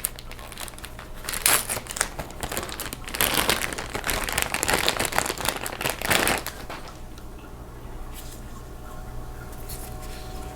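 Crinkly plastic being handled in several rustling bursts, dying down about six and a half seconds in to a faint steady low hum.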